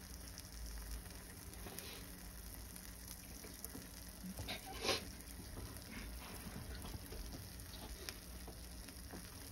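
Faint sizzling and crackling of a cheese quesadilla frying in a hot pan over a gas burner, with one louder pop about five seconds in.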